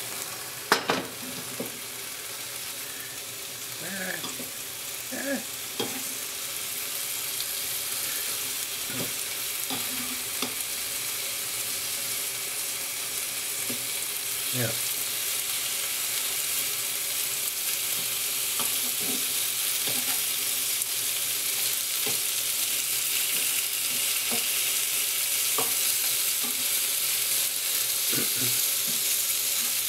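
Smoked bacon strips sizzling in a frying pan, a steady hiss that slowly grows louder. Now and then a metal fork knocks and scrapes against the pan as the strips are moved.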